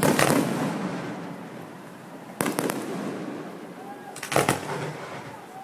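Aerial firework shells bursting overhead: a loud bang near the start, another about two and a half seconds in, and a quick double bang just past four seconds, each followed by a fading rumble.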